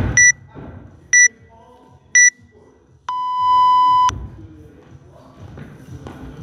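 Workout interval timer counting down: three short high beeps a second apart, then one long lower beep lasting about a second that signals the end of the rest and the start of the next work round.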